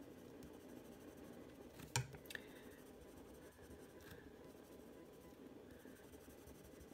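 Violet Prismacolor coloured pencil shading on paper with light pressure, faint scratchy strokes that build up a layer. A sharp click about two seconds in, with a smaller one just after.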